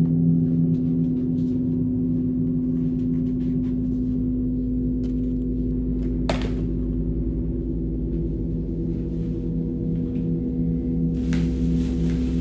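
A low, sustained droning horror score with a gong-like ring, its lowest tone pulsing slowly. A single sharp knock sounds about six seconds in, and a plastic trash bag rustles near the end.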